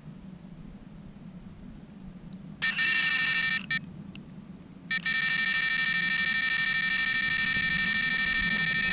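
Electronic carp bite alarm sounding: a short burst about two and a half seconds in, a brief blip, then a continuous tone from about five seconds on. This is a run, a carp taking line.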